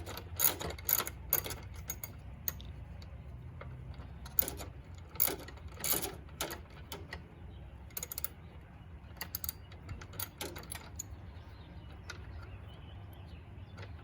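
Hand ratchet wrench clicking in short irregular runs as a bolt is worked loose. The clicks thin out near the end.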